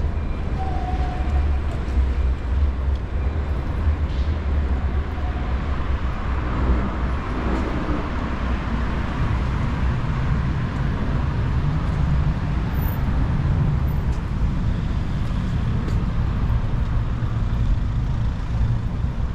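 City street traffic: cars driving along a boulevard, a steady rumble, with one vehicle passing louder about seven seconds in.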